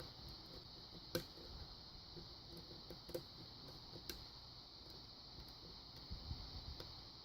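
Faint, scattered light clicks and ticks of a lock pick working the pins of a Kwikset pin-tumbler lock held under tension, the clearest click about a second in, over a steady hiss.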